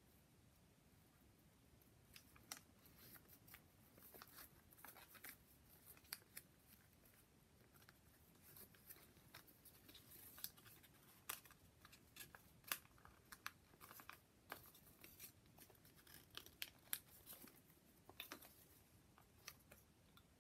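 Faint, irregular crisp rustles and clicks of folded paper units of a modular origami polyhedron being handled and slotted together.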